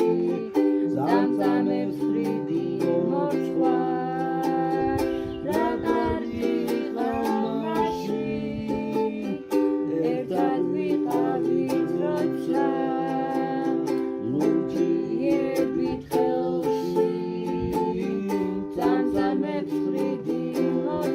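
Instrumental folk music: a plucked string instrument played with frequent strummed strokes over steady held notes.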